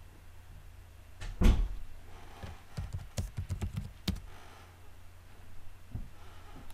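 Typing on a computer keyboard: one louder thump about a second and a half in, then a quick run of about a dozen key clicks over two seconds and a few more near the end.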